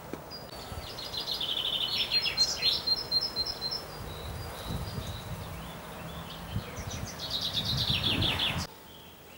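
A songbird singing two quick trilled phrases, each a run of notes falling in pitch, about four seconds apart, with a low rumble in between. The sound cuts off abruptly near the end.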